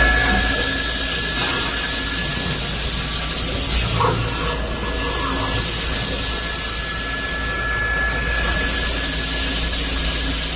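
CNC beam drilling machine running: a steady hissing mechanical noise with a steady high whine and a low hum, and a short knock about four and a half seconds in.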